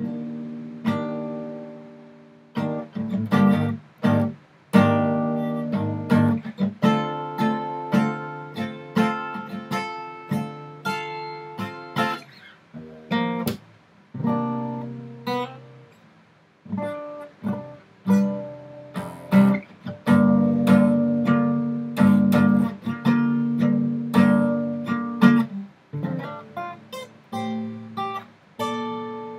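Acoustic guitar strummed in chords, each strum ringing out and dying away before the next. The playing starts right at the beginning and briefly eases off a little past the middle before picking up again.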